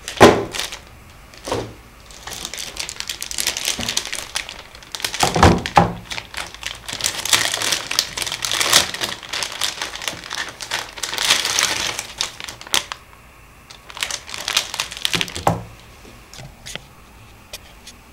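Irregular crinkling and rustling handling noise with scattered clicks and knocks, dying down to a few faint clicks near the end.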